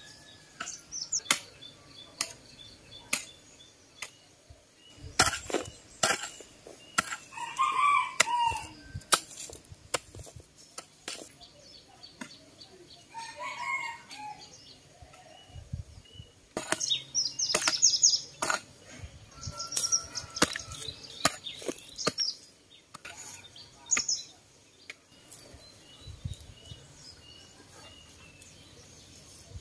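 A hoe chopping into dry soil in a scatter of sharp strikes. A rooster crows twice in the background, and small birds chirp.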